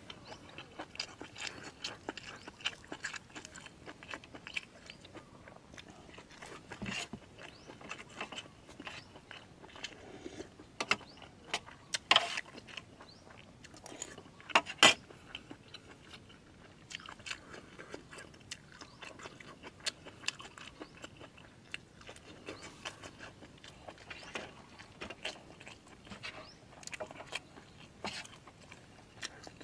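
Close-up eating sounds: a person chewing and crunching raw vegetables and food with wet mouth smacks, in many short crisp bites, with two louder sharp crunches about 12 and 15 seconds in.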